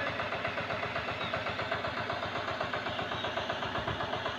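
Hand tractor (power tiller) engine running steadily, with an even, quick pulsing beat.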